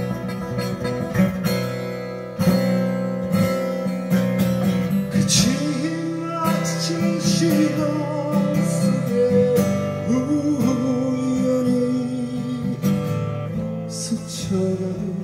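Acoustic guitar played through an instrumental break between verses of a live ballad, with a gliding melody line above the chords.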